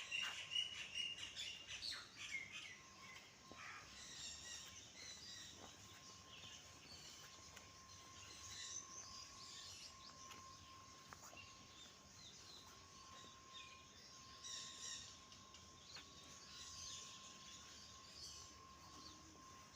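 Faint chirping of small birds, many short high calls overlapping. From about two seconds in, a thin, steady high whine runs underneath.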